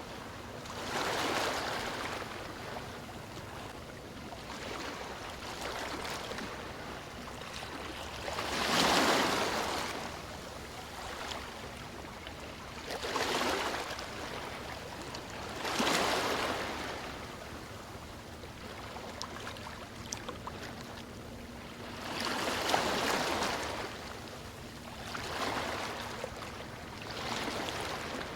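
Sea waves breaking on a beach, surging and washing back every few seconds. The biggest waves come about nine and sixteen seconds in.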